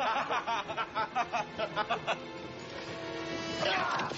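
A man laughing heartily in a quick run of 'ha' pulses that stops about two seconds in, over background music. A short, louder burst of sound comes near the end.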